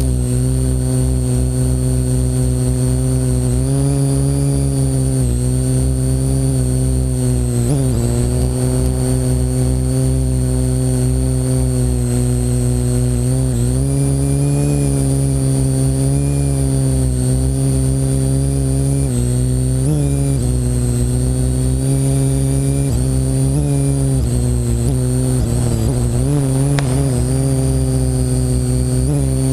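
Parrot AR.Drone quadcopter's electric motors and propellers buzzing, heard close from the GoPro mounted on it, with a high whine above. The pitch steps up and down every few seconds as the drone changes thrust, over a low rumble of wind on the microphone.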